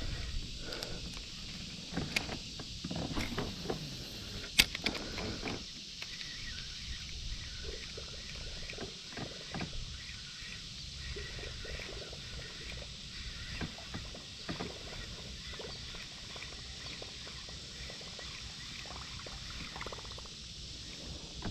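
Small knocks and rustles of gear being handled in a kayak, busier in the first few seconds, with one sharp click about four and a half seconds in, over a steady high outdoor hiss.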